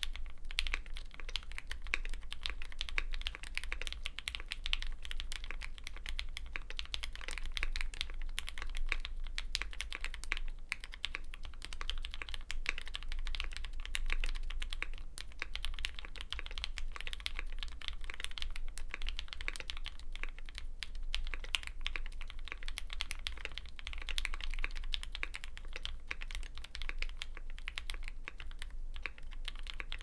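Continuous typing on a Polaris gasket-mount keyboard with a polycarbonate plate, lubed Gateron Ink V2 black linear switches and GMK keycaps: an unbroken stream of keystrokes with a soft bottom-out and a deeper sound.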